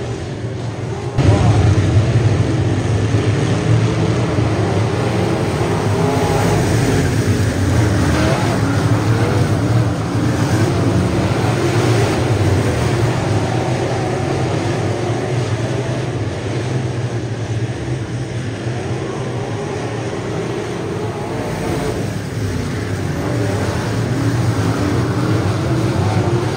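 Dirt-track race cars' engines running hard around the oval, their pitch rising and falling as the cars go through the turns and pass by. The sound gets louder about a second in.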